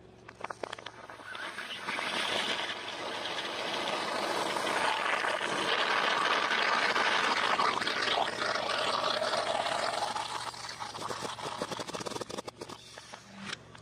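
A plastic soda bottle full of water beads and liquid crushed under a car tyre: crackling plastic at first, then a long hiss as the liquid and air jet out under pressure. The hiss fades into scattered crackles near the end.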